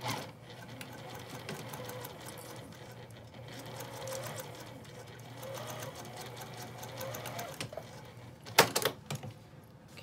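Juki sewing machine running steadily, stitching a zipper to a fabric panel, for about seven and a half seconds before it stops. A brief loud clatter of clicks follows near the end.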